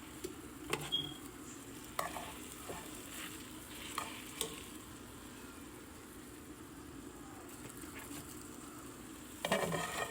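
Chicken pieces sizzling as they sauté in a frying pan, a steady faint hiss broken by a few light clicks and a louder clatter near the end.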